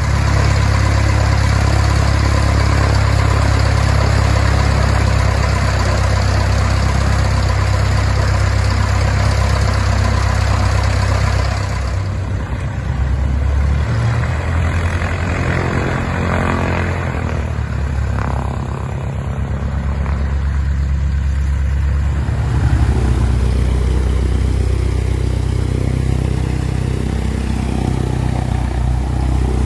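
Piston engine of a 1969 Cessna 177A Cardinal running steadily on the ground, its first runs after a 16-year restoration. Its sound shifts a couple of times, about 12 and 22 seconds in.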